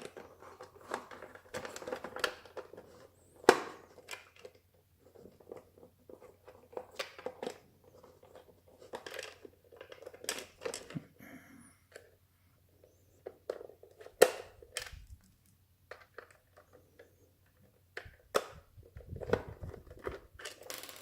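Screwdriver working a screw out of a Bosch Athlet vacuum cleaner's plastic handle: irregular clicks, scrapes and rustling as the plastic is handled, with a few sharp knocks, the loudest about three and a half seconds in and near the middle.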